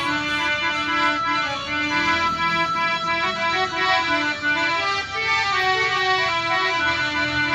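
Electronic harmonium with a built-in Casio keyboard being played: a melody of held notes over chords.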